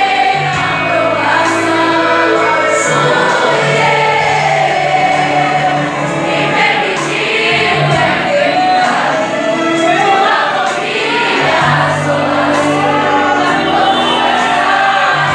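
A choir singing a Christian worship song over steady instrumental accompaniment with sustained bass notes.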